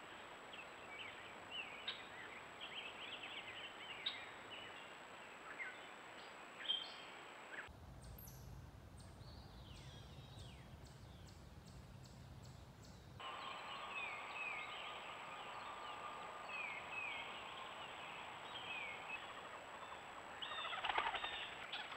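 Wild songbirds chirping and calling over a steady outdoor hiss. For several seconds in the middle the birdsong drops away under a low hum, and near the end there are a few louder sounds close together.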